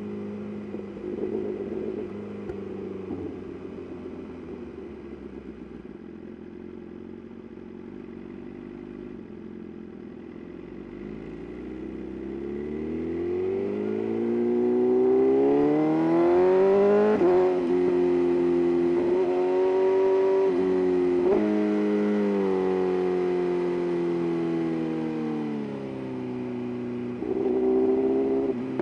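BMW S1000RR inline-four engine and exhaust: it first runs at low revs off the throttle, then revs up hard about halfway through. The pitch drops sharply a few times at gear changes, then holds steady at a louder cruise, and the engine eases off with a short rev near the end.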